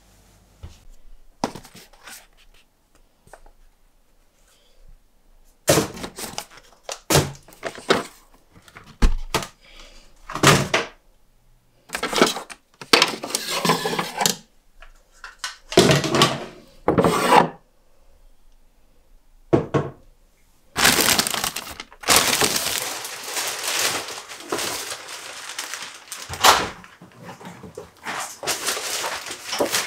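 Kitchen cupboards being emptied by hand: scattered knocks and thunks of items picked up and set down, then a longer stretch of plastic bags and packets rustling and crinkling as they are handled, about two thirds of the way in.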